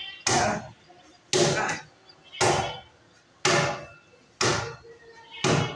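Hard open-hand slaps of skin on skin, about one a second. Each slap is sharp and rings out briefly.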